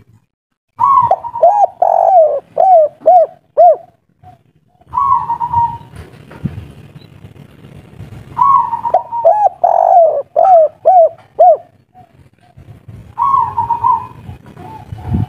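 Spotted dove cooing loudly. Its song comes in two long phrases, about a second in and about eight seconds in, each a quick run of short looping coos. Shorter single coo phrases fall between them and near the end.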